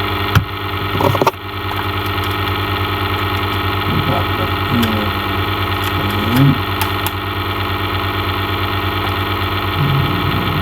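A steady, loud mechanical hum made of many fixed tones, like a motor or electrical drone, with a few sharp clicks about a second in.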